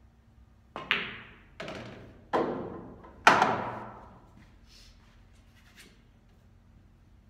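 A pool shot: the cue tip taps the cue ball and a sharp clack follows as it strikes an object ball, which is potted. A series of hard knocks follows, each ringing away, the loudest about three seconds in, as the pocketed ball drops and knocks through the table.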